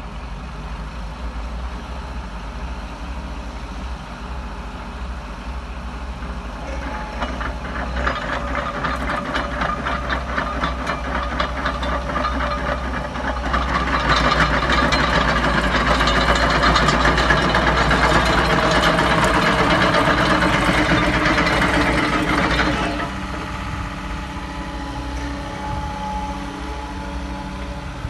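Liebherr R317 Litronic crawler excavator's diesel engine running. From about a quarter of the way in it grows louder as the machine works, with a rapid clanking of the steel tracks. It is loudest over the middle stretch, then drops back to a lower idle near the end.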